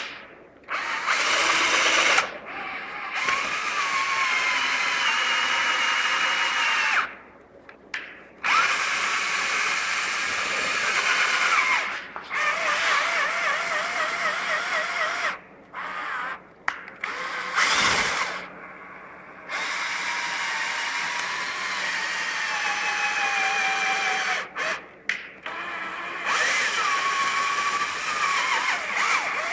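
Small electric motors whining in repeated bursts, several seconds each, starting and stopping abruptly, with the pitch sliding up and down as the load changes.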